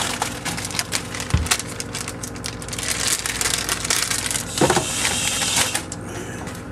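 Close, dense crackling and rustling right at the microphone, with a low thump about a second and a half in and a louder knock later on.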